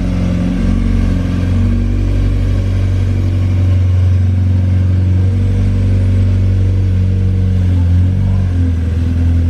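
Mazda MX-5's four-cylinder engine and aftermarket exhaust droning at steady revs under way, a loud, even low hum that barely changes in pitch.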